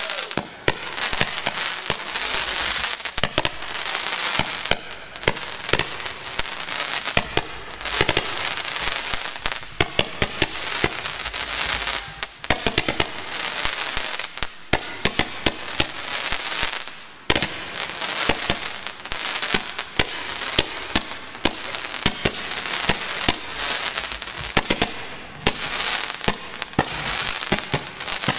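Fireworks going off from the ground: a steady stream of crackling and rapid launch pops, with many sharper bangs throughout.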